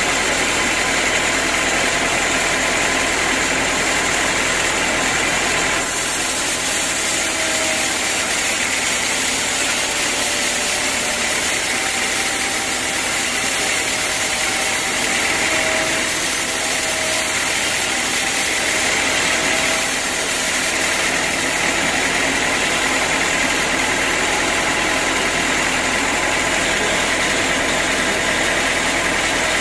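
Sawmill machinery running steadily, a loud continuous even noise with a faint hum beneath it.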